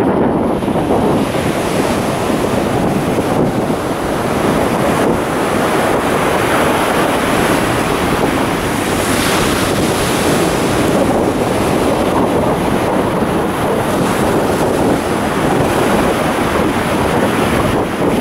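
Steady rush of wind buffeting the microphone, mixed with the wash of ocean surf.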